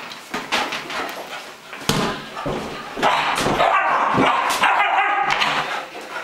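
Beagle barking and yipping in short repeated calls, most densely in the second half, with a couple of thumps.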